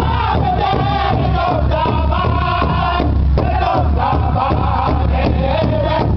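Powwow drum group: several men striking one large shared drum together in a steady beat while singing in unison in high-pitched voices.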